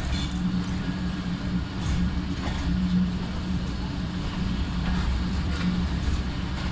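Steady low rumble of a motor vehicle in motion, heard from on board, with an engine hum that swells and eases a little.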